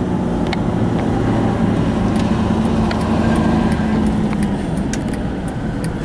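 Car cabin noise while driving: steady engine hum and tyre noise on the road. The engine note eases off about four and a half seconds in as the car slows for a turn.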